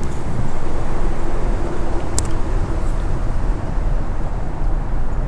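Steady rumble of interstate highway traffic, heavy in the low end, with a single sharp click about two seconds in.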